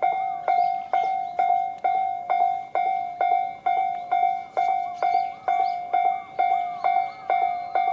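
Japanese railway level-crossing alarm bell, the electronic 'Tobu sound C' type, ringing in a steady rhythm of a bit over two strokes a second, each stroke a bright ringing tone that dies away quickly.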